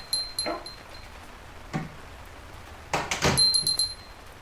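Café door being pushed open and swinging shut, with a small door bell jingling once at the start and again about three seconds in. There are a few knocks, and the heaviest thud of the door comes with the second jingle.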